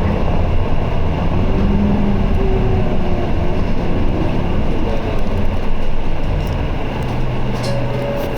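Isuzu Erga city bus heard from inside the cabin, its four-cylinder diesel engine and drivetrain droning steadily while under way, easing off slightly near the end.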